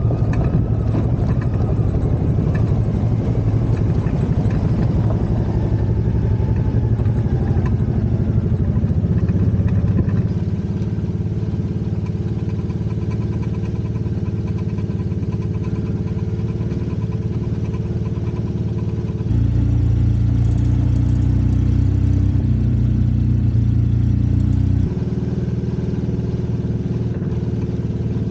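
Off-road vehicle engine running steadily while driving a trail. Its pitch and loudness change abruptly about ten, nineteen and twenty-five seconds in.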